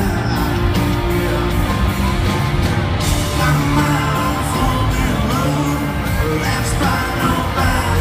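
Live country-rock band playing, with a male lead singer, amplified through a stadium sound system and heard from within the crowd.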